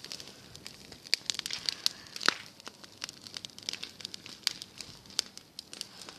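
A pile of dry grass and straw burning, with irregular crackling and sharp snapping pops, the loudest a single snap a little over two seconds in.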